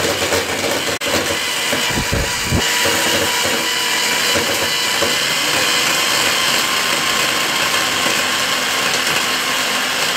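Hand-held electric blender motor running steadily, cutting out for an instant about a second in.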